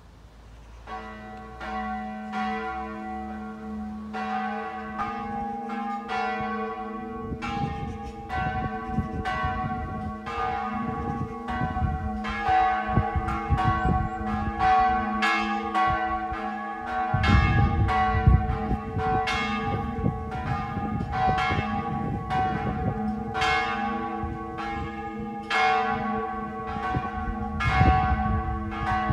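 Brunflo church's two bells swing-ringing together for a test ring: the great bell, recast in 1766, and the small bell, cast in 1665, pitched a semitone apart (g′ and g♯′). Their strokes overlap at about one and a half a second, each leaving a long ring, and build up over the first few seconds.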